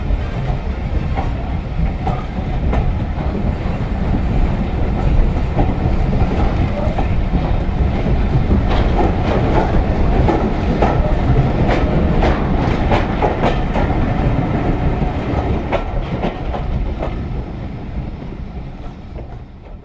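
Train running on the rails, its wheels clicking over the rail joints. The clicking is busiest in the middle and the sound fades near the end.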